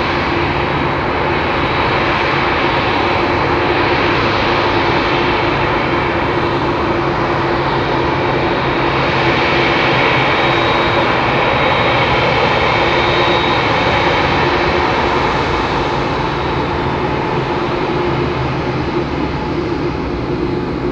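Boeing 787-8 airliner's turbofan engines running steadily as it taxis close by: a continuous jet rumble with a steady whine, swelling a little midway.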